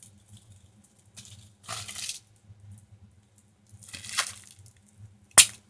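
Slime being squished and worked by hand, giving a few short wet squelches, then one sharp click near the end.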